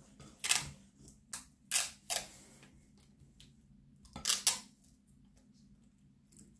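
Wire whisk stirring dry flour and cocoa powder in a glass bowl, clinking against the glass in about six short, sharp taps, mostly in the first half and again a little past the middle.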